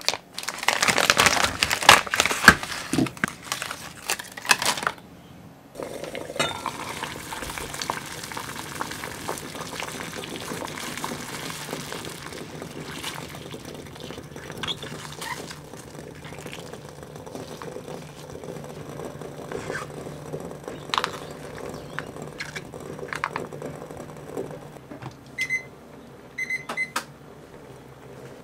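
Plastic pouches crinkling for about the first five seconds. Then a steady hiss from a gas burner heating a glass saucepan of water with frozen tapioca-drink pouches thawing in it, with occasional light clicks of chopsticks on the pouches and pan.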